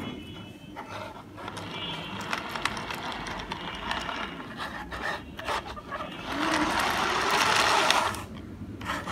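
Plastic toy mixer truck pushed by hand across a table: its wheels rolling and the fan inside its clear drum spinning and churning the plastic beads, a rattling, clicking whir that swells loudest from about six to eight seconds in.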